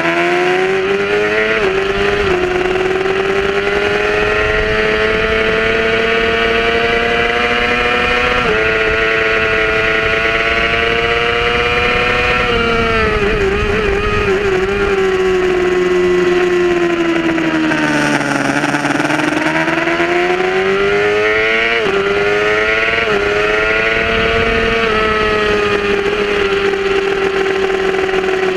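Yamaha R6 inline-four engine revving hard under full throttle on track, its pitch climbing with short dips at each upshift, then falling and wavering as the bike slows and downshifts, then climbing again through more upshifts. Wind rushes over the microphone throughout.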